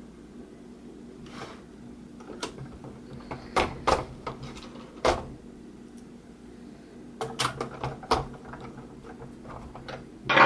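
Scattered clicks and knocks of plastic and a screwdriver being handled while the Cisco 7960 IP phone's housing and stand are put back together, with a quick run of clicks about seven seconds in. A faint steady hum lies underneath.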